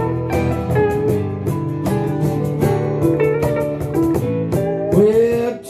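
Guitars playing an instrumental break in a country song, picked notes over a steady strummed rhythm, with a note gliding in pitch about five seconds in.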